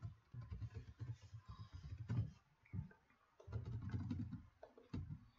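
Typing on a computer keyboard: two runs of keystrokes with a short pause between, then a single click near the end.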